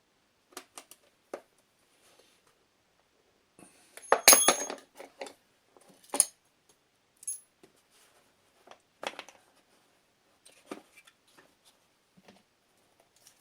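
Metal hand tools and parts being handled on a workbench: scattered taps and clicks, with one loud ringing metal clatter about four seconds in and a sharp clink about two seconds later.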